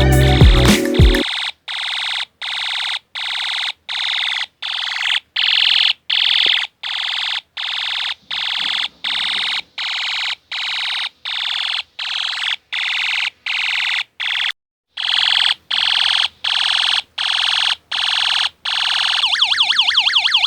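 Electronic siren tone from a homemade UM3561 siren-chip circuit, played through a small speaker and sounding in rapid repeated pulses with short gaps. It pauses briefly about two-thirds of the way through, then changes to a fast warbling pattern near the end. Background music plays for the first second.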